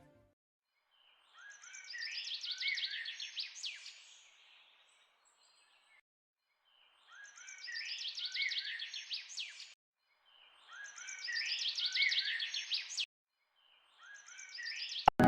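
A songbird singing a short, quick phrase of chirps and sweeping whistled notes, repeated four times with pauses of a second or two between phrases. The last phrase is cut short.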